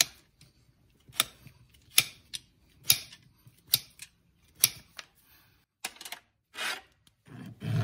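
Hoof knife paring a horse's hoof sole: short, sharp scraping cuts at about one a second, with quiet between strokes.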